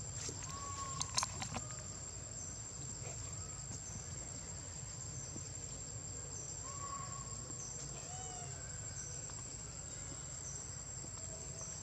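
Outdoor ambience: a steady high insect drone with a short chirp repeating a little faster than once a second. A few brief whistled calls come over it, and there is a cluster of sharp clicks about a second in.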